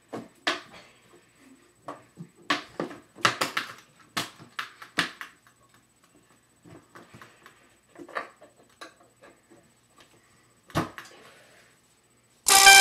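Scattered short knocks and rustles from someone moving about, with quiet gaps between them. Near the end, loud music with a stepping melody cuts in suddenly.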